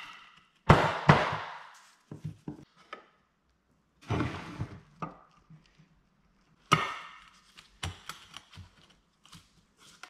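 Irregular knocks and clanks of steel parts being handled or struck, about eight over ten seconds, some trailing off with a short ring.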